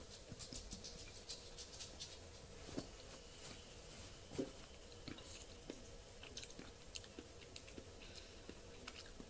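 Someone drinking from a glass bottle: quiet gulps and swallows, then faint mouth clicks as he tastes it, one a little louder about four seconds in.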